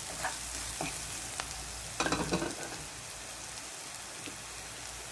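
Spices and a crushed ginger, garlic and green chilli masala sizzling in hot oil in a non-stick kadhai while a spatula stirs them. A steady sizzle with scattered scrapes of the spatula on the pan, a quick run of them about two seconds in.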